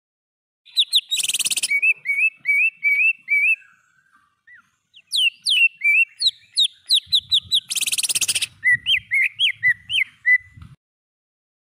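Cucak ijo (green leafbird) song: fast runs of sharp, up-slurred whistled notes, twice broken by a short harsh rasping burst. The song breaks off for about a second in the middle and stops shortly before the end.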